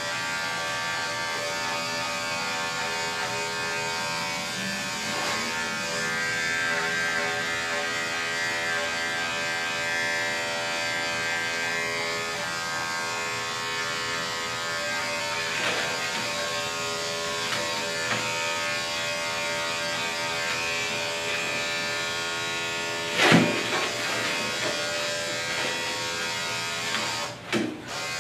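Andis five-speed electric dog clipper running with a steady buzz while clipping a curly coat. A sharp knock stands out about 23 seconds in, with a smaller one near the end.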